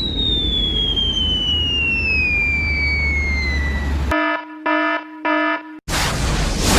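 A falling whistle glides steadily down in pitch for about four seconds over a low rumble. Then three short buzzing beeps, and a loud burst of noise starts near the end, the onset of a boom.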